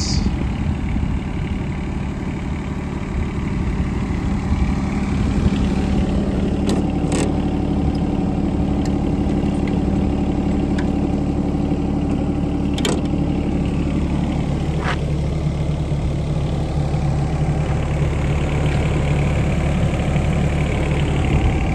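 Yanmar diesel engine of a 2008 John Deere 17D mini excavator running steadily, its note shifting a couple of times as the load changes. A few sharp clicks or knocks come through over it.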